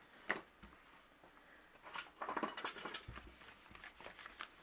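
Soft clicks and taps of hands pressing an inked clear stamp onto cardstock in a MISTI stamping positioner: one click near the start, then a cluster of small taps about two seconds in.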